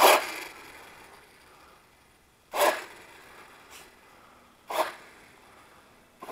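Arrma Talion 6S BLX brushless radio-controlled car taking off in short throttle bursts on concrete, a quick hiss of motor and tyres each time. There are four bursts about two seconds apart, the first the loudest.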